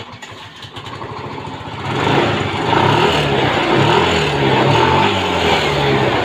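Yamaha Fino 125 Blue Core scooter's fuel-injected single-cylinder engine running, idling at first and then revved up and down several times from about two seconds in. It is running normally with its throttle position sensor plugged back in, the fault behind MIL code 15.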